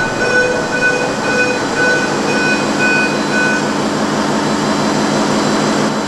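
Steady drone of ship's engine-room machinery and ventilation, with an electronic alarm beeping over it about twice a second for the first three and a half seconds, then stopping.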